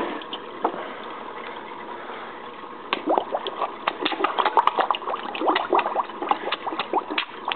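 Koi gulping and splashing at the water surface as they mouth at fingers held just above it: a rapid, irregular run of wet smacks, slurps and pops starting about three seconds in, over a steady faint hiss.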